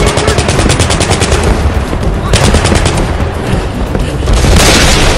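Rapid bursts of automatic rifle fire, about a dozen shots a second: a long burst in the first second and a half, a short one a little after two seconds, and a louder one near the end.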